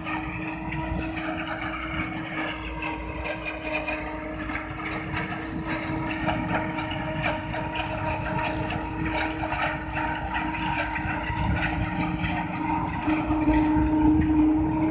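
Tractor-driven napier grass harvester and the truck running beside it, a steady mechanical drone of engines and chopping machinery, getting louder near the end.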